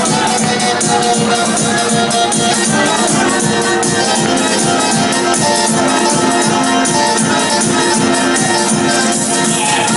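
Loud instrumental dance music with a steady beat and a held melody line.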